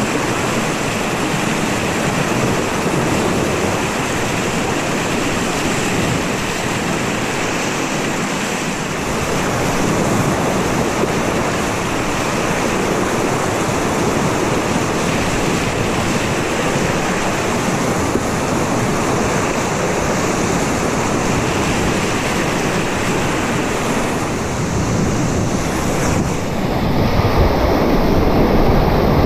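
River water rushing and splashing around a paddled whitewater kayak, with wind on the microphone. Near the end the sound turns duller and a little louder.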